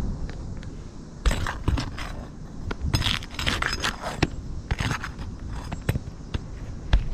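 Roofing nails being pried out from under asphalt shingles: a run of scraping, crunching bursts of metal on gritty shingle with scattered sharp clicks. The scraping starts about a second in and eases off about five seconds in.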